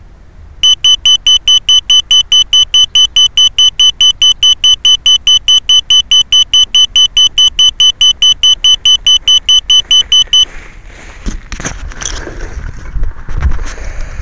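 Crashed FPV drone's lost-model locator beeper sounding loud, fast electronic beeps, about four a second, which signal where the drone lies in the grass. The beeping stops about ten seconds in and gives way to rustling and handling knocks as the drone is picked up.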